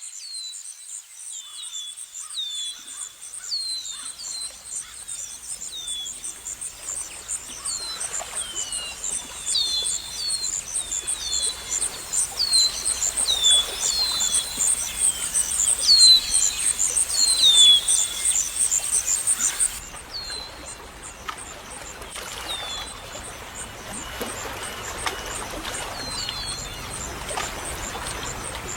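Nature ambience of birds chirping, with many short, falling calls, over a high, fast, evenly pulsing trill. The trill stops abruptly about twenty seconds in. After that, a soft steady hiss of trickling water and a few scattered chirps remain.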